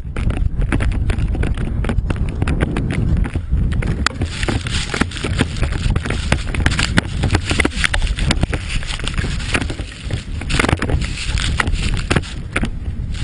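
Snowmobile ride: a steady low rumble with frequent knocks and rattles, and a rushing hiss that comes in about four seconds in, like wind on the microphone.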